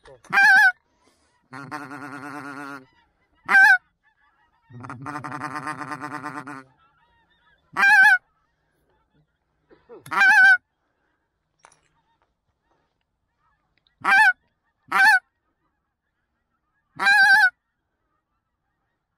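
Goose call blown by a hunter to draw in passing geese: seven short, loud honks with a breaking pitch, a few seconds apart, and twice a longer, lower buzzing rattle between the first few honks.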